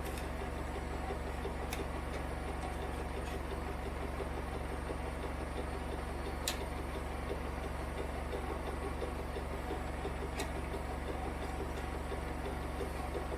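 Zanussi IZ 16 S washing machine running, a steady mechanical hum with a sharp click about every four seconds.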